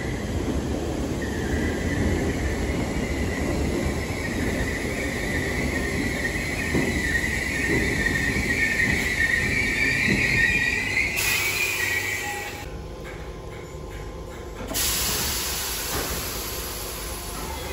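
Merseyrail Class 507 electric multiple unit pulling into the platform, its running rumble carrying a steady high-pitched squeal that grows louder as it slows. Once it has stopped, about eleven seconds in, comes a sudden hiss of air, then a quieter spell and a second hiss about fifteen seconds in.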